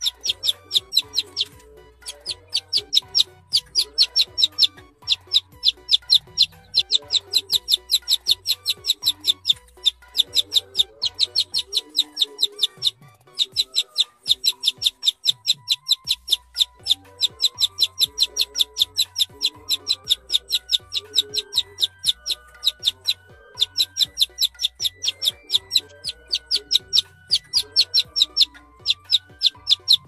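Young domestic chicken chick peeping in long runs of short, high chirps, about four a second, broken by a few brief pauses.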